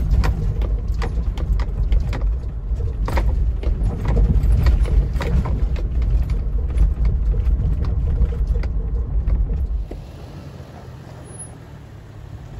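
Cabin rumble of a 2018 Toyota 4Runner TRD Off-Road crawling over a rocky trail: its 4.0-litre V6 and tyres on rock, with frequent knocks and rattles. About ten seconds in, the rumble falls away and the sound turns much quieter.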